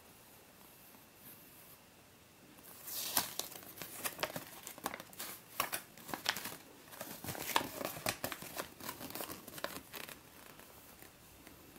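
Folded paper instruction leaflet being unfolded and handled: paper rustling and crinkling with sharp crackles. It starts about three seconds in and eases off near the end.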